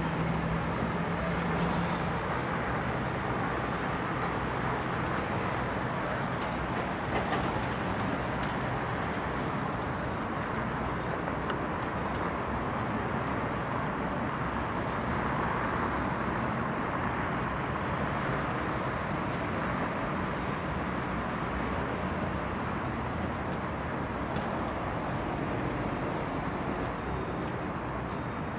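Steady distant roar of a Boeing 777's jet engines at taxi power, holding an even level without rising or falling.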